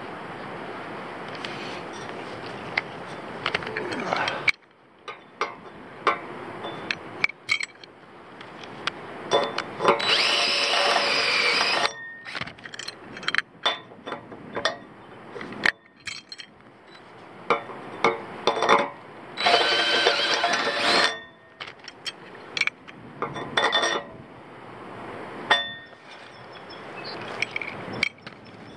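Cordless drill running in two bursts of about two seconds each, amid short clicks and clinks of metal hardware being handled.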